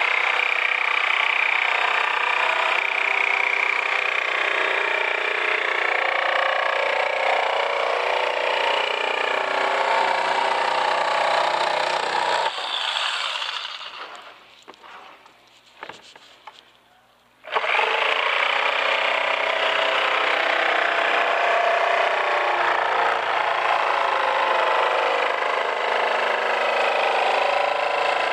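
Electric jigsaw running steadily as it cuts through the edge of a plastic tray. It stops for about five seconds near the middle, with a few faint knocks as the tray is turned, then starts again and cuts on.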